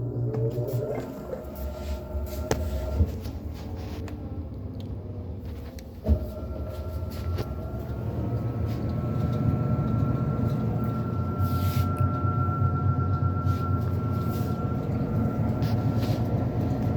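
Washing machine running with a steady low motor hum and rumble. A sharp click comes about six seconds in, then a steady high whine joins the hum, which grows a little louder over the following seconds.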